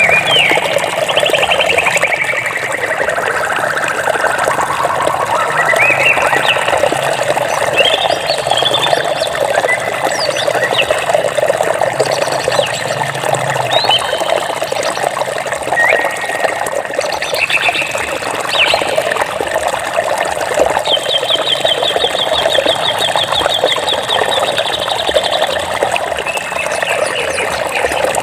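Water flowing steadily, with birds chirping over it: short calls and sliding whistles, and a rapid trill held for about four seconds past the middle.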